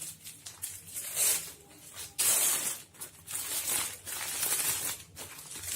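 Rustling of packaging being handled, in irregular bursts of crinkly noise about a second apart.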